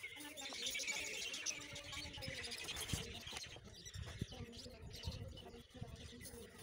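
Pencil lead scratching on paper in quick shading strokes: a dense scratchy rasp for the first few seconds that then grows softer, with a few dull knocks of the hand on the paper.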